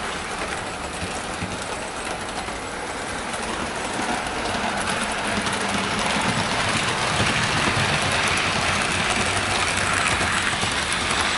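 Hornby model HST train running along model railway track: a steady whirr of the motor and wheels on the rails, growing louder from about four seconds in.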